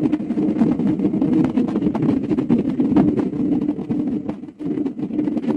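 Motorcycle engine running at a steady speed under way, with gusty wind noise on the microphone.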